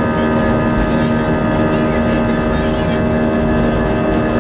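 Airbus A320's jet engines running at a steady low setting while the airliner taxis, heard inside the passenger cabin as an even hum over a broad rush of noise.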